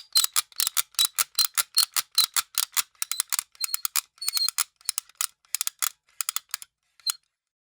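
A small gadget giving a rapid run of sharp clicks with a thin high ring, about four or five a second, that grows sparser and stops about seven seconds in.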